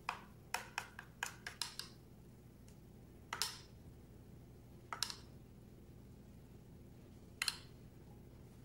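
Metal spoon clinking against a stainless steel bowl and plate while spooning sauce: a quick run of about seven light clinks in the first two seconds, then three single clinks a couple of seconds apart.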